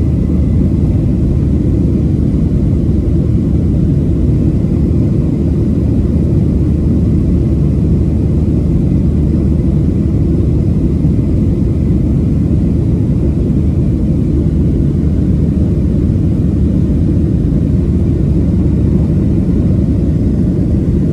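Steady low rumble of a Boeing 737-700's CFM56 jet engines and rushing air, heard inside the passenger cabin during the climb after takeoff.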